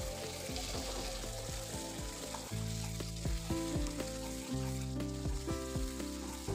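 Thick chicken curry masala sizzling in oil in a frying pan while a wooden spatula stirs and scrapes through it. The masala is well fried down, with the oil separating on top.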